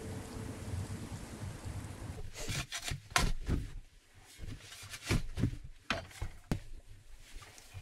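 Wind noise for about the first two seconds, then a shovel digging into a sandy dirt floor. Its blade scrapes and bites in with a series of sharp strikes and scoops, about eight in all, irregularly spaced.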